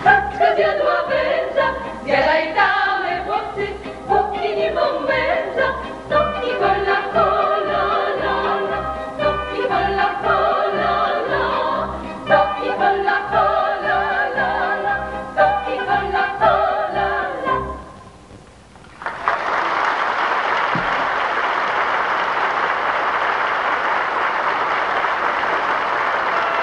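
Women's folk choir singing a Kurpie folk song over a steady low instrumental beat. The song ends about 18 seconds in, and after a short pause an audience applauds steadily.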